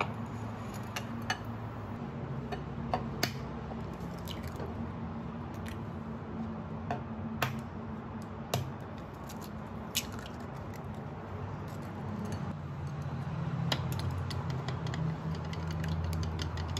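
Kitchen prep sounds: wooden chopsticks and dishes clicking and tapping, an egg cracked into a ceramic bowl, and near the end eggs beaten with chopsticks, over a steady low hum.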